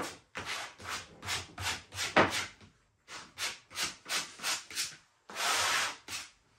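Spatula scraping as Bostik glue is spread across a panel, in quick back-and-forth strokes about three a second, broken by two short pauses, with one longer stroke near the end.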